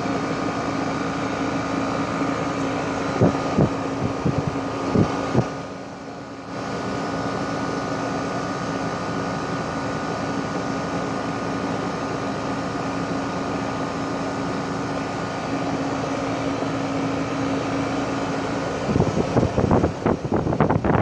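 2012 Rheem 4-ton heat pump outdoor unit running in cooling mode: compressor and condenser fan with a steady hum and a low steady tone. A few sharp knocks come about three to five seconds in, and irregular gusty rumbling, like wind on the microphone, comes near the end.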